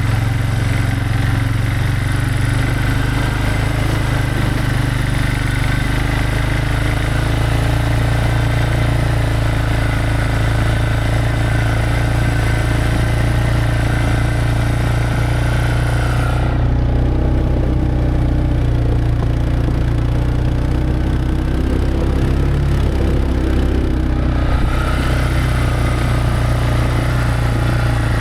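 Vehicle engine running steadily, a constant low drone. For several seconds past the middle the higher-pitched hiss drops away, leaving mostly the engine's drone, and then returns.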